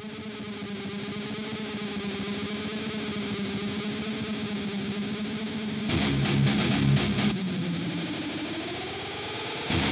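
Background music: a distorted electric guitar holds one long note that swells in, then plays a rhythmic low riff about six seconds in and again near the end.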